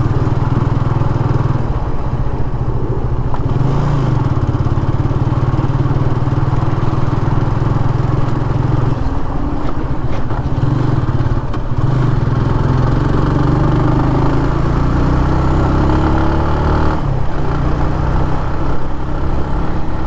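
TVS Apache RTR 180's single-cylinder engine running through its stock exhaust, the engine note shifting in pitch several times.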